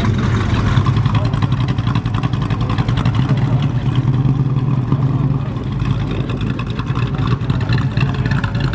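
Classic Mopar muscle cars, a Dodge Charger and then a Plymouth Barracuda, driving slowly past at low revs, their engines giving a deep, steady exhaust note.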